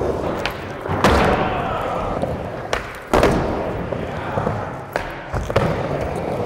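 Skateboard rolling across indoor skatepark ramps, the wheels running steadily. The board thuds about a second in, hardest about three seconds in, and again more lightly about five seconds in.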